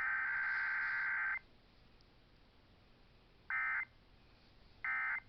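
Emergency Alert System digital data tones (SAME header bursts): a harsh, buzzy electronic chirping that ends about a second and a half in, followed by two short bursts of the same sound, about a second and a half apart.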